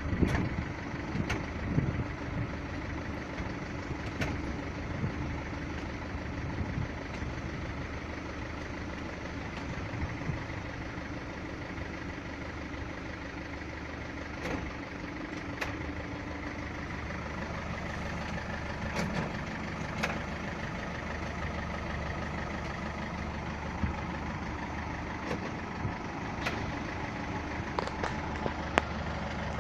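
Mercedes Vito 638 2.2 CDI four-cylinder diesel idling, with a dozen or so sharp knocks scattered through it, the strongest near the start and near the end. The knocks are the automatic transmission clunking as it is shifted from park or neutral into reverse.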